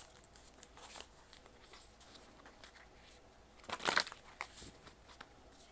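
An oracle card deck being shuffled by hand: quiet rustling and sliding of cards, with one brief louder riffle about four seconds in.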